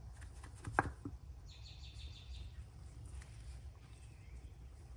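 Quiet handling of a metal jet-pump bearing sleeve in gloved hands: a few light clicks and one sharper knock about a second in, over a low steady hum, with a brief high chirping near two seconds in.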